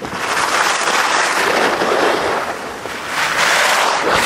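Skis sliding and scraping over packed snow on a downhill run: a loud, rough crackling hiss that swells and eases a few times.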